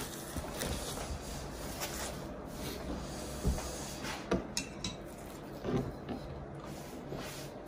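Tableware being gathered up from a table: a handful of light knocks and clinks from chopsticks, a wooden bowl and a ceramic plate, over faint steady background noise.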